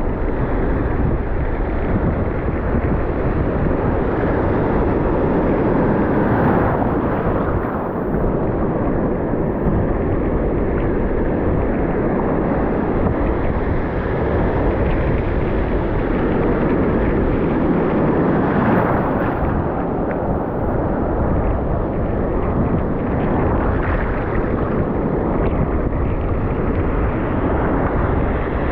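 Steady wind buffeting the microphone over the wash of breaking surf, a constant low rumbling noise with no pauses.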